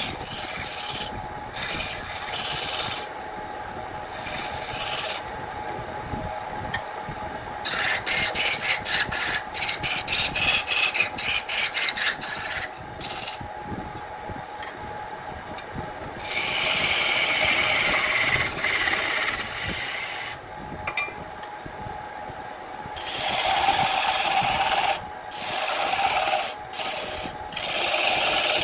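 Wood lathe spinning a vase blank while a hand-held turning tool cuts into it, peeling off shavings, over the lathe's steady hum. The cuts come and go: a quick run of short strokes, then longer continuous cuts with short breaks between.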